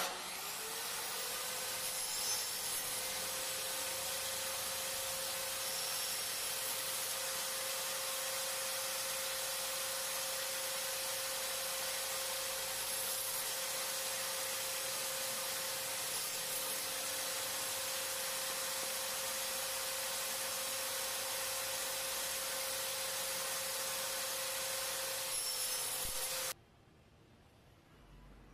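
Electric power-tool motor switched on, its whine rising to full speed within a second, then running steadily at high speed with a spread of hiss before stopping abruptly near the end.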